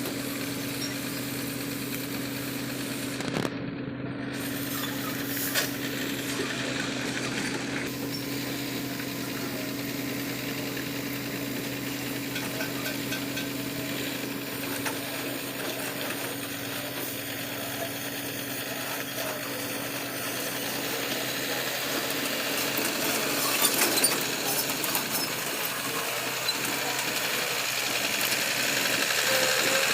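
Heavy diesel machinery running steadily, a constant engine hum under a clattering rattle, with a few short knocks and growing slightly louder near the end.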